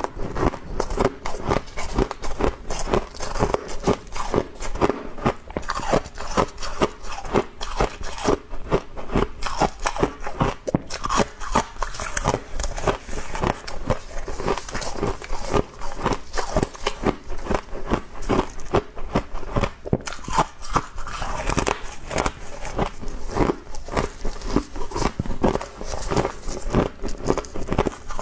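Close-up crunching and chewing of humidifier frost, many rapid crisp crunches in a steady run of bites.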